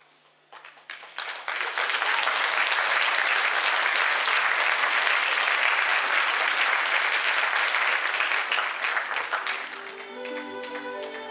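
Audience applause: a few scattered claps, then full clapping from about a second and a half in, dying away near the end as instrumental music begins.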